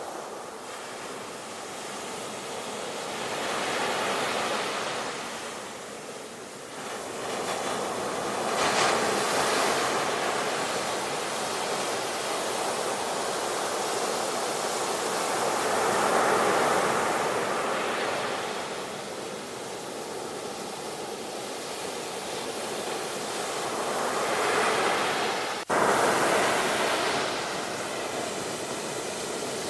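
Ocean waves breaking and washing ashore, the surf swelling and fading every several seconds, with a momentary cut in the sound near the end.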